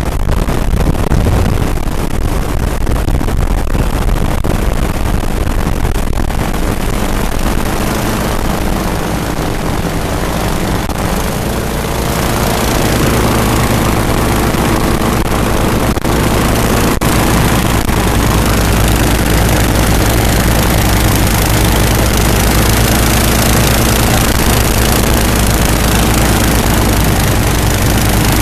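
Twin-engine airboat's engines and propellers running steadily, a little louder and more even from about twelve seconds in.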